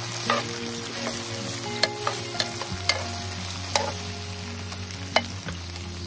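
Sausages, onion and bell peppers sizzling as they stir-fry in a hot griddle pan, a utensil scraping through them and clicking against the pan several times.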